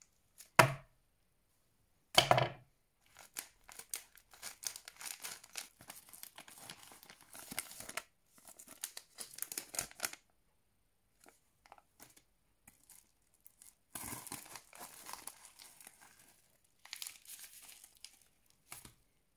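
Plastic shipping bag and holographic foil pouches being torn open and crinkled by hand, in several spells of rustling with pauses between. Two sharp thumps near the start are the loudest sounds.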